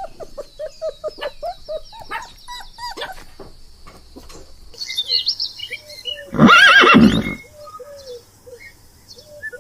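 A string of short, repeated animal calls, with one much louder, longer call about six and a half seconds in.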